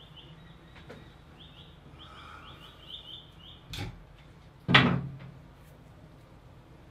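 A run of faint, quick high chirps, then a click and a loud knock about four and a half seconds in that dies away quickly.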